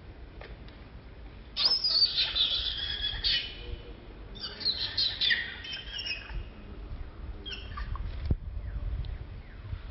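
Infant long-tailed macaque squealing in high, chirping cries, in two bursts of about two seconds each and a short one near the end. A single sharp click follows just after the last.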